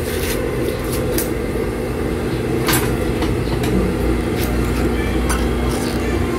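Four-thread Siruba 747 industrial overlock machine running, with a steady motor hum and a few light clicks, sewing a test seam along a scrap of cloth just after being freshly threaded.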